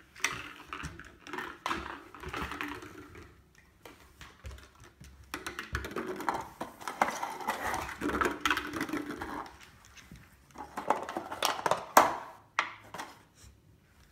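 A beagle's claws clicking and scrabbling on a hardwood floor as it dashes about playing with plush toys, in several bursts with short lulls, and a sharp knock about twelve seconds in.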